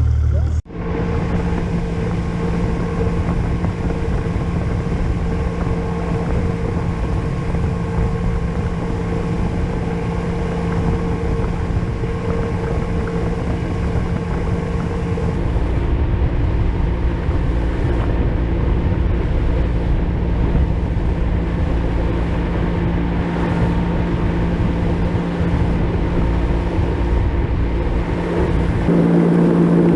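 Motorboat engine running steadily under way, a continuous hum. Its tone shifts about halfway through and grows louder near the end as the revs change.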